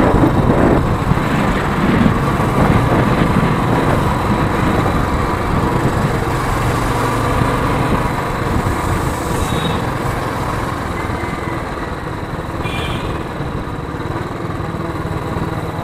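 Motorcycle riding in city traffic: its engine running steadily under the rider, mixed with wind and road noise, easing off a little in the second half as the bike slows behind cars.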